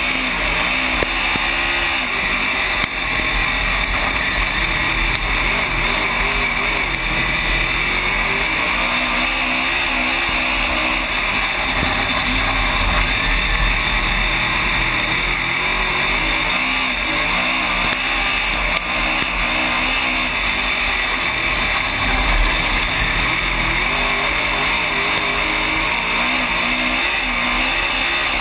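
Dirt-track race car's V8 engine at racing speed, heard from inside the cockpit. The revs rise and fall over and over as the car laps the oval.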